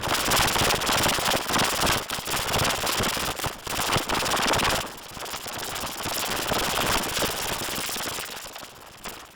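Home toilet flushing: a loud rush of water for about five seconds, then a quieter, fading flow.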